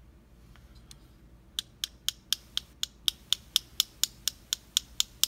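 A rapid run of sharp, evenly spaced clicks, about four a second, starting about a second and a half in, from small metal parts of a disassembled padlock being handled.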